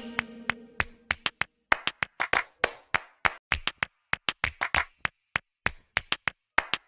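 Background music: an electronic track fades out, leaving a sparse percussion break of sharp hand claps and clicks in an irregular rhythm with silence between the hits.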